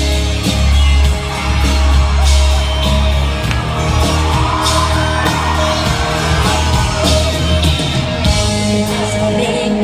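Live pop-rock band playing at full volume, with steady bass, drums and a voice singing, and the crowd yelling along.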